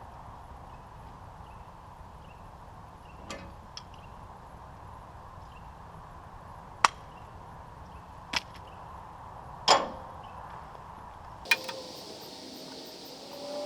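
About six sharp knocks at irregular intervals, the loudest near the middle, over a faint steady background noise.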